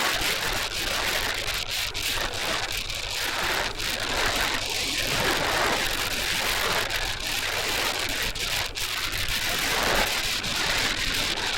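Strong wind blowing across the microphone: a loud, steady rushing noise that swells and eases in gusts, with a low steady hum underneath.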